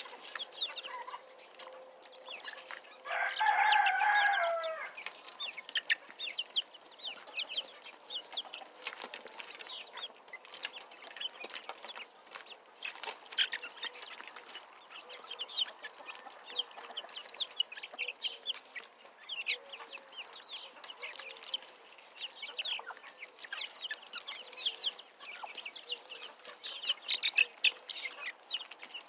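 Backyard chickens: a rooster crows once, about three seconds in, over steady high-pitched peeping from a pen of baby chicks, with scattered clucks.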